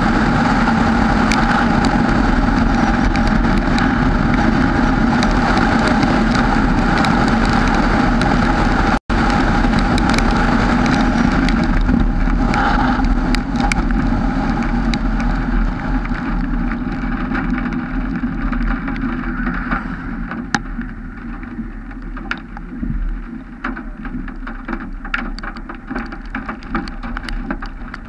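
Vehicle driving, a steady drone of engine and road noise heard through a GoPro mounted on the vehicle, with a split-second dropout about a third of the way in. In the second half the drone eases off and scattered ticks of raindrops hitting come through.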